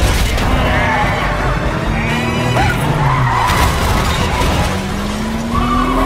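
Film car-chase sound mix: a car engine revving, climbing in pitch near the end, with tyres skidding and several sharp impacts, over dramatic orchestral-style music.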